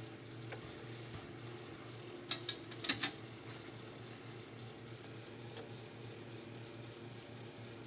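Steady low hum, with a quick run of about four sharp clicks a little over two seconds in and a few fainter ticks.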